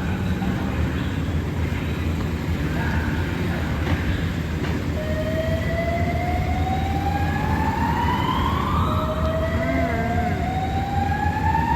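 Fire apparatus siren slowly winding up in pitch, starting about five seconds in, then beginning a second rise just after the first peaks, over a steady low engine rumble.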